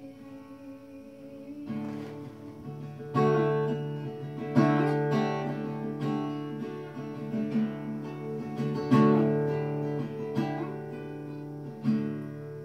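Solo steel-string acoustic guitar playing an instrumental passage: soft at first, then louder chords struck every few seconds and left ringing.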